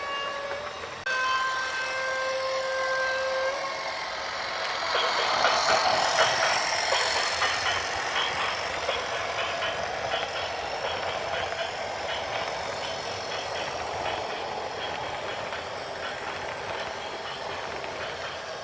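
A vehicle horn sounds in long steady tones, then a loud noisy rumble of heavy vehicle movement with a fast rattling tick that slowly fades.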